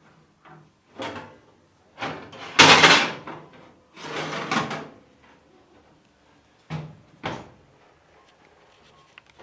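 Handling and cleaning noises on a cooker: a brief scrape, then two longer sliding, rubbing sounds, the first the loudest, followed by two quick knocks about half a second apart.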